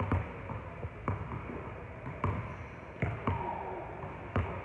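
Basketballs bouncing on a hardwood gym floor, about six irregular thuds that echo in the large hall.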